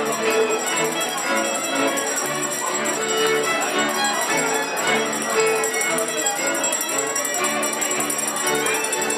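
Polish highlander string band of fiddles and a bass playing a lively folk tune, with a high jingling of bells along with it.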